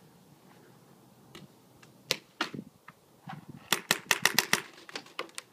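Paintball markers firing with sharp pops: two single shots about two seconds in, then a rapid string of about eight shots in under a second, and a few more shots near the end.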